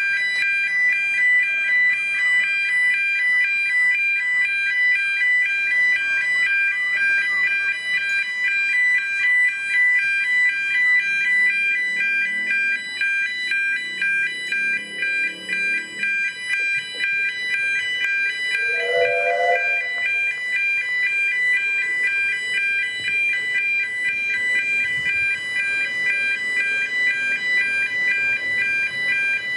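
Level crossing warning alarm sounding continuously, a rapidly pulsing high electronic tone sounding while the red road lights flash to stop traffic for an approaching train.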